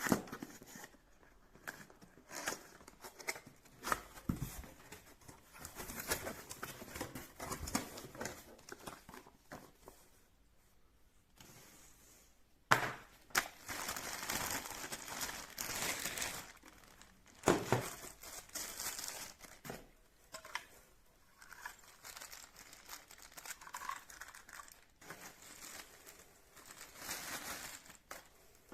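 Crinkling and rustling of something being handled, like packaging, with a few sharp clicks or knocks in between.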